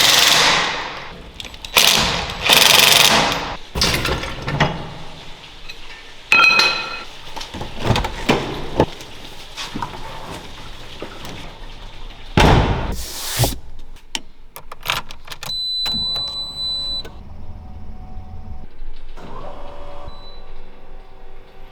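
Handling sounds around a Nissan Silvia S14: a run of clunks and knocks with several loud rushes of noise, then a short steady high electronic beep about two-thirds of the way through.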